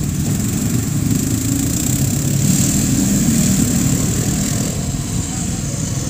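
A vehicle engine idling steadily.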